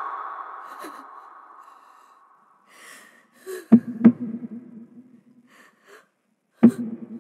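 A woman's grief-stricken wail trailing off, then a few sharp, gasping sobs.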